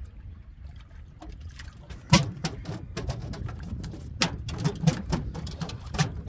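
Rapid, irregular knocks and slaps from a freshly caught ladyfish being handled on the boat, over wind rumbling on the microphone.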